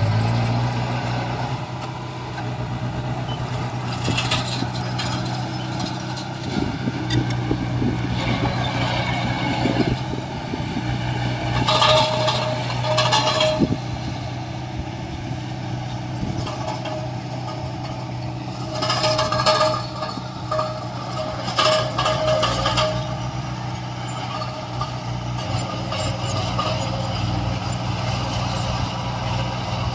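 Heavy diesel construction machinery running steadily, with several louder stretches of higher-pitched mechanical noise, around twelve seconds in and again around twenty seconds in.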